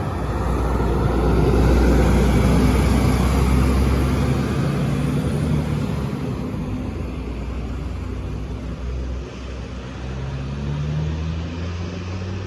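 A Volvo bus's diesel engine running close by as it moves past. It is loudest about two seconds in and slowly fades, and an engine note rises near the end.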